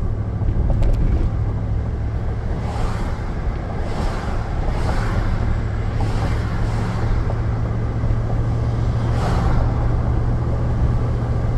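Steady road noise inside a moving pickup truck's cabin: engine and tyre hum, with a few brief whooshes over the top.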